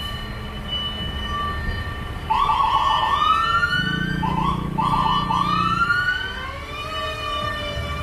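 Fire truck siren sounding a run of rising whoops, each one starting with a short stutter, beginning about two seconds in. A low steady drone sits under the middle whoops.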